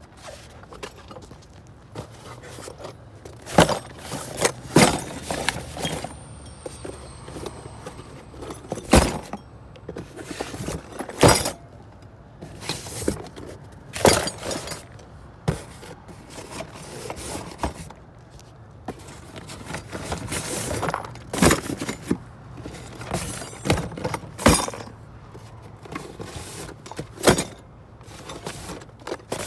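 Metal door locks and hardware clanking, clinking and rattling as they are shifted and dug through in a dumpster, with irregular sharp knocks every second or two.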